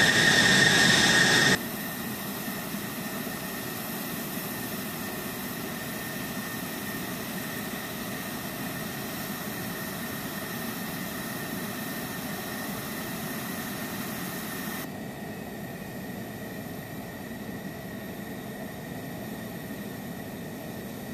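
F-16 fighter jet engines running on the flight line: a loud steady rush with a high whine that cuts off abruptly about a second and a half in, leaving a quieter steady rush that steps down again about 15 seconds in.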